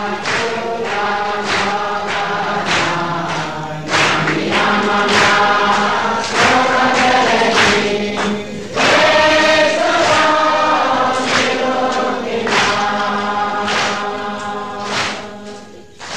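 A congregation singing together, many voices in unison; the singing fades down near the end.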